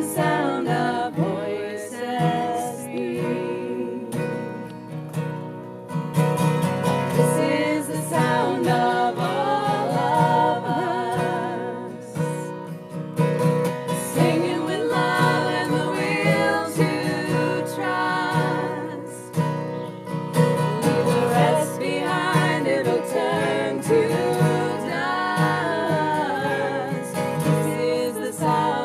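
Three women singing a country song in close harmony, with acoustic guitar accompaniment keeping a steady pulse underneath.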